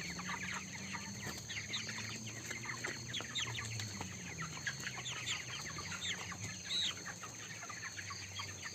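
A crowded flock of young broiler chickens peeping and chirping continuously in many overlapping short calls, over a low steady hum.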